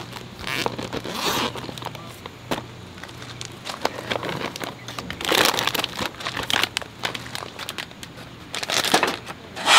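A soft cooler bag unzipped and opened, then plastic-wrapped food packets crinkling and rustling as they are taken out and handled, with scattered light clicks and knocks.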